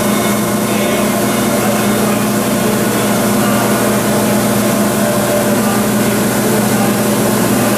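Kekeisen UBF 3000/15 bed milling machine running with a steady electrical-mechanical hum, a strong low tone with fainter higher tones above it.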